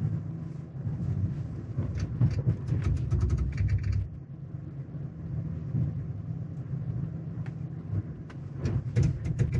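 Cabin sound of a 2022 Chevy Silverado ZR2's 6.2-litre V8 drivetrain in four-wheel-drive low, creeping slowly downhill under hill descent control with a steady low rumble. Brief runs of crackling and clicking come from about two to four seconds in and again near the end.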